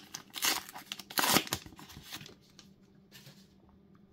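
Paper trading cards being handled and slid against one another: a few short rustles in the first two seconds, the loudest about a second in, then one faint one a little after three seconds.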